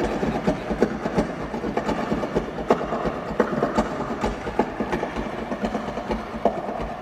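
Two acoustic guitars played fast and hard, with rapid percussive strumming and picked notes making a dense, driving clatter of many strokes a second.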